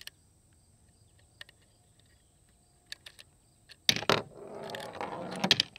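9mm cartridges being thumbed out of a Stribog SP9A3 magazine: a few faint clicks, then about four seconds in a sharp click and about a second and a half of scraping as a round slides out past the feed lips. The magazine is slow to push each round up because the rounds bind in the stack.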